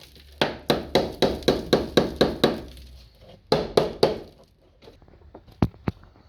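A small hammer striking in a quick, even run of about three blows a second, which stops after about two and a half seconds. Two more blows follow, then a couple of sharp clicks near the end.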